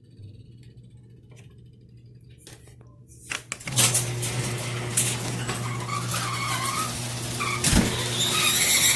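Pocket bike's small engine running at a steady pitch, faint at first and much louder from about four seconds in, with a rushing noise over it.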